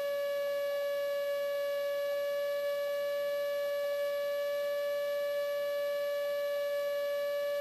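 A steady, unbroken beep tone at one mid pitch, with no other sound beneath it; it stops abruptly near the end.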